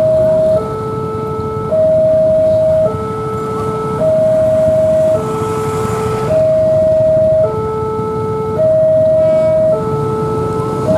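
Railway level-crossing warning alarm sounding: two electronic tones alternating high and low, each held about a second, repeating steadily.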